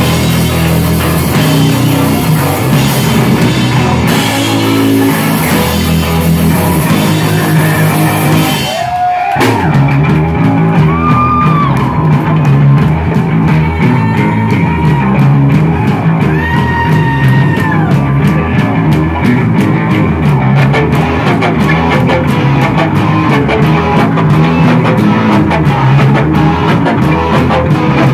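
Live rock band playing loud, with distorted electric guitar and a drum kit, heard close to the stage. There is a brief lull about nine seconds in before the full band comes back.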